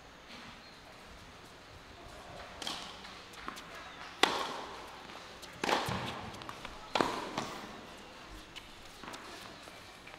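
A tennis rally: sharp racket strikes on the ball about every second and a half, starting a couple of seconds in, with lighter ball bounces between them. The hitting stops a few seconds before the end.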